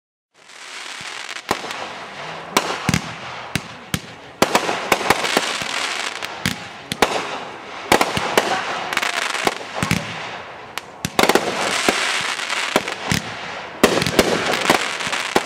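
Consumer 1.4G aerial fireworks (200- and 500-gram multi-shot cakes) firing in quick succession, starting about half a second in: a steady hiss of burning stars with many sharp bangs from shots and bursts, coming in waves.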